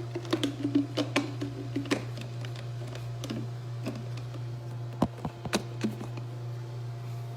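Light clicks and knocks of a siphon coffee maker's parts being handled as the upper chamber is moved onto its stand to drain. The clicks come thick in the first couple of seconds, then sparser, with two sharper knocks about five seconds in, over a steady low hum.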